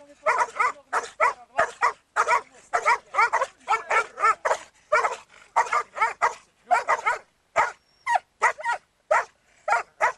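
A leashed hound and a black-and-tan canine, which the uploader calls a young wolf, barking excitedly at each other in a rapid, unbroken run of sharp barks and yelps, several a second with only brief pauses.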